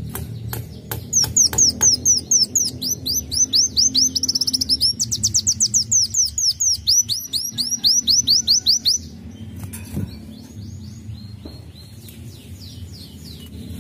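Ruby-cheeked sunbird singing: a few sharp ticks, then a loud, fast run of high down-slurred notes, several a second, lasting about eight seconds, followed by fainter chirps near the end.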